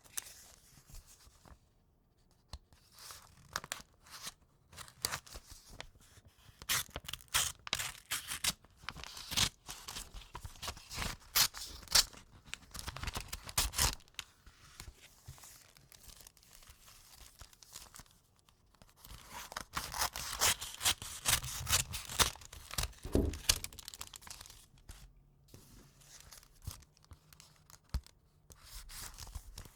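Paper envelope being slit open with a knife: irregular bouts of rasping, tearing paper, with short pauses and paper rustling between them.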